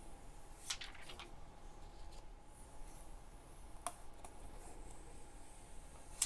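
Clear plastic protective film being peeled off a smartphone's screen and back, giving a few faint crackles and clicks, with one sharper click near the end.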